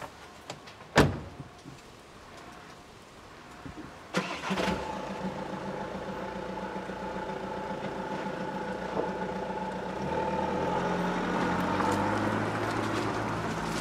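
A van door slams shut about a second in. About three seconds later the Volkswagen Caddy's engine starts and runs steadily, then its note drops lower and grows a little louder as the van pulls away over the cobbles.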